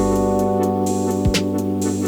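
Background music: sustained keyboard chords over a steady drum beat.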